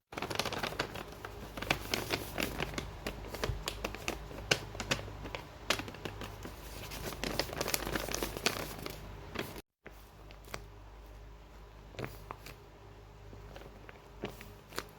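Crinkling and crackling of a blind bag's wrapping being handled and opened, dense for about the first ten seconds. After a brief dropout to silence, only sparser crinkles and light taps follow.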